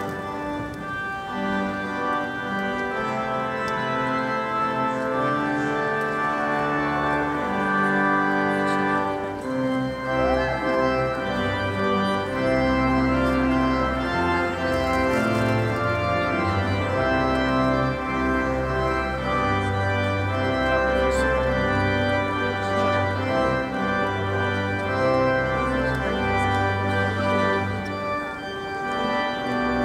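Organ playing a processional in a large church: held, sustained chords, with deep pedal bass notes joining about ten seconds in.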